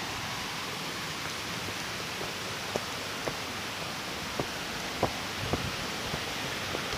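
Steady rush of a flowing stream, with a few faint clicks midway.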